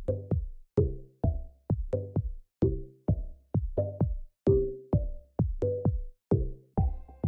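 Electronic dance music with a steady drum-machine beat, about two hits a second.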